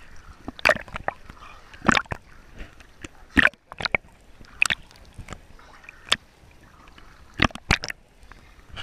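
Sea water slapping and sloshing against a camera at the surface as it dips under and back up, with short sharp splashes about every second or so, some seven in all.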